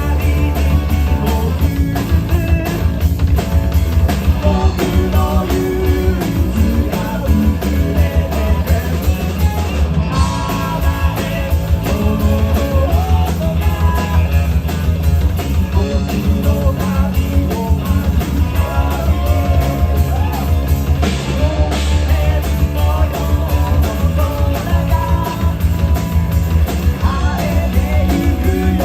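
A rock band playing live, with a heavy bass line, drums, electric guitar and singing.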